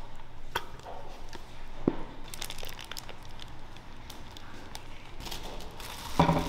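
Light crinkling and scattered clicks of kitchen handling, with a louder knock near the end.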